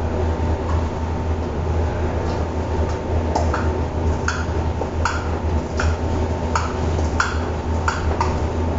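Metal spoon clinking against a stainless steel bowl as egg, minced meat and greens are mixed, in regular short ringing strikes a little more than one a second from a few seconds in, over a steady low hum.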